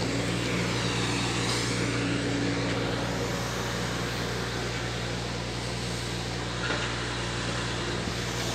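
Steady low mechanical hum under an even wash of outdoor noise, unchanging throughout.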